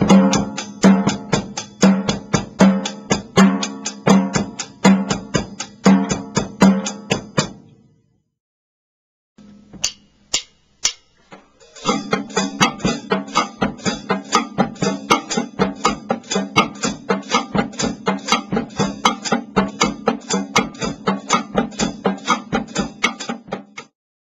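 Drum kit playing a bossa nova beat: evenly spaced cymbal or hi-hat strokes about four a second, with cross-stick rim clicks and a low drum underneath. The beat stops around eight seconds in, a few single clicks follow, and a second variation of the pattern starts about twelve seconds in and stops just before the end.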